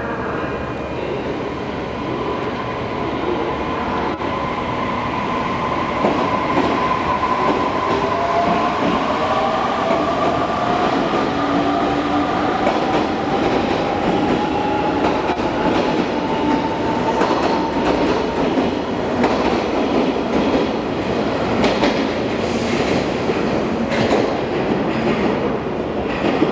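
817 series and 813 series electric multiple unit train pulling out of a station, its motors giving a whine that climbs steadily in pitch as it gathers speed. In the later part the wheels clack rhythmically over the rail joints.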